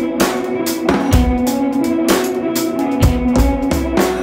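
Background music with a steady drum-kit beat, bass drum and snare, over sustained melody notes that step up and down in pitch.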